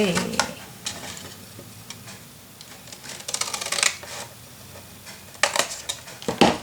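Paper and card pieces being handled on a craft table: a few short rustles and scrapes of card sliding against card, about half a second in, around three and a half seconds, and twice near the end.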